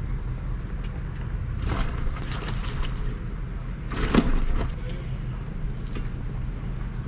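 Steady low rumble of an idling vehicle engine, with brief rustling and scraping noises of gear being handled in the boat about two and four seconds in.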